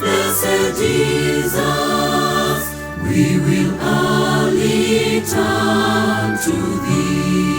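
Choir singing the closing refrain of a hymn in slow, sustained chords.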